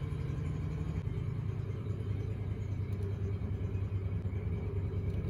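Argo Conquest eight-wheel amphibious ATV with a Honda 690 V-twin engine running steadily at low speed as the machine drives slowly forward.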